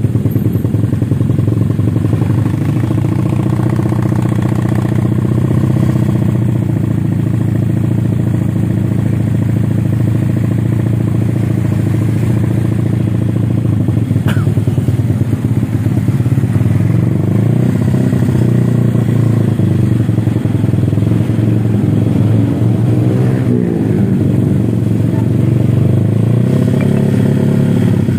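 Honda Vario scooter's single-cylinder four-stroke engine running loud through a freshly fitted racing exhaust. It runs fairly steadily at first, then is revved up and down by hand over the second half.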